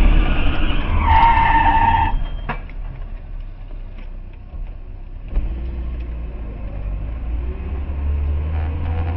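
Road and engine rumble inside a moving car, with a high squeal about a second in that lasts about a second, a few sharp knocks, and a sudden jump in the rumble a little past halfway.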